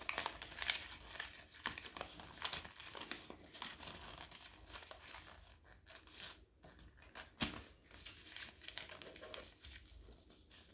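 Paper rustling and crinkling as it is folded and creased by hand into a paper airplane, with one sharper tap about seven and a half seconds in.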